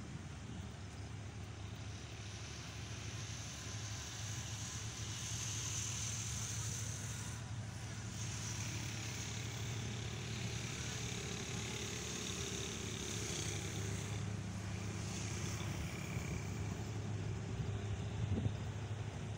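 Diesel engine of a Pakistan Railways HGMU-30 diesel-electric locomotive running as the train approaches, a steady low hum that slowly grows louder. A faint high hiss comes and goes in the middle, and there is a short knock near the end.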